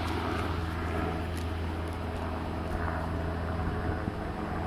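A steady low hum with outdoor background noise.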